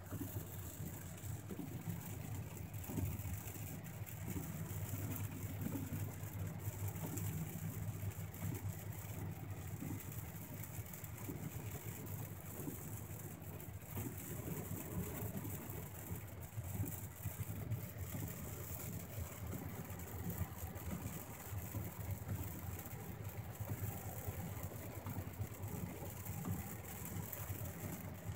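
Car driving on a wet road, heard from inside the cabin: a steady low engine and road rumble with a constant hiss above it.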